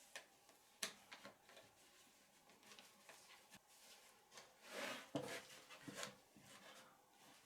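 Quiet, faint handling noises of a jigsaw being set in place on a board: scattered light clicks and knocks, with a brief rustle about five seconds in.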